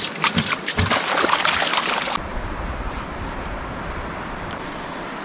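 Water sloshing and splashing as gold trap concentrates are washed out in a clean out, with sharp clicks for the first two seconds. About two seconds in the sound changes abruptly to a steady rush of water.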